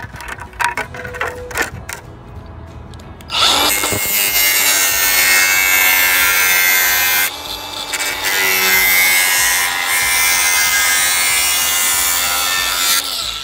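A few knocks and clicks as a clear plastic sheet is handled, then about three seconds in a power-tool cutting wheel starts cutting through the plastic with a loud, steady, high-pitched grinding noise. It drops out briefly about seven seconds in, resumes, and stops just before the end.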